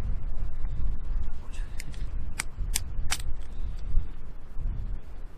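A few sharp clicks and knocks, about four of them close together around the middle, from a blunt rock striking limpet shells to knock them off the shore rocks. They sit over a low rumble.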